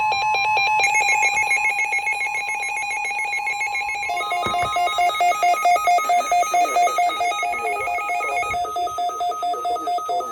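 Weather radio alert alarm for a severe thunderstorm warning: a steady high alarm tone under a rapid warbling electronic beep. About four seconds in, this changes to a pulsing two-tone beep at about four beeps a second.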